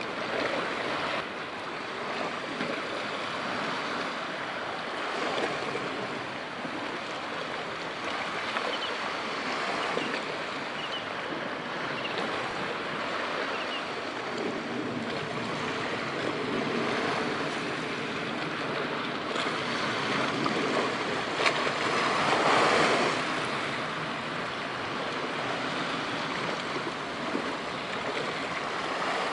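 Steady wash of sea waves, swelling louder for a couple of seconds about three-quarters of the way through.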